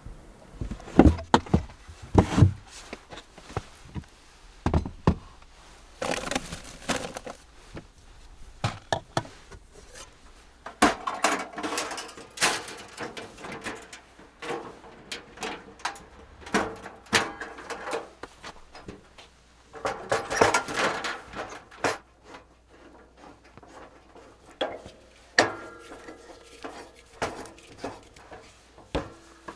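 Irregular clunks, knocks and clicks from camp gear and cookware being handled, with a few short stretches of rustling.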